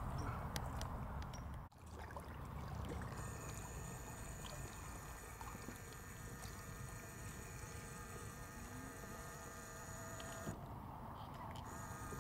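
A steady buzzing hum made of several held pitches. It starts about three seconds in, cuts out briefly near the end and returns. Under it is a low rumbling noise.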